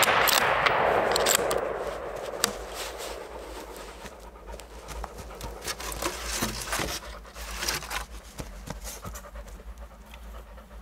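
Rolling echo of a .223 Tikka T3x CTR rifle shot fading away over the first two seconds, then a dog panting.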